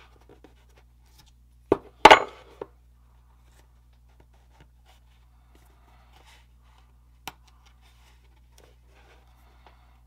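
Small steel square being handled and set against a styrene girder piece on a wooden work board: a sharp tap and then a louder metallic clatter about two seconds in, a single click later, with faint scratching and rubbing of fingers and metal on the plastic in between.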